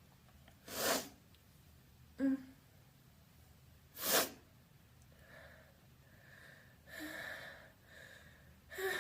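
A person sneezing loudly and openly, in wet sneezes. Two sharp sneezes come about a second and four seconds in, with a short voiced catch between them. Then come several gasping breaths that build up to another sneeze near the end.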